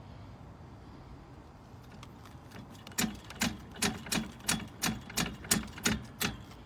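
Allen Sports 552QR hitch-mounted bike carrier rattling: a run of sharp metallic knocks, about three a second, starting about three seconds in.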